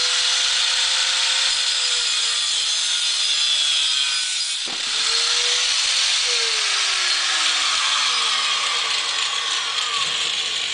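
Power tool with a cutting disc grinding through the sheet-metal casing of an oil filter, the motor's whine sagging and falling in pitch as it bogs under load. It stops for an instant about halfway through, then cuts on.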